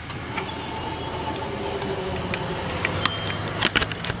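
A car driving up to and across a railroad grade crossing: a steady road-and-rail rumble, with a few sharp clacks near the end as its tyres go over the rails.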